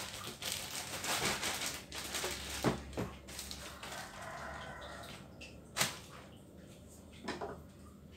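Clear plastic bag of shredded vegetables crinkling and rustling as it is handled, for about the first two seconds, then a few scattered sharp clicks and knocks of kitchen handling.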